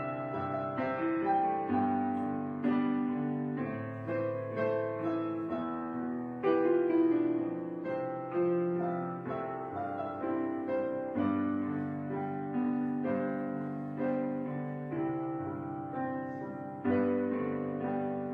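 Background music: a soft solo piano piece, notes struck and left to decay.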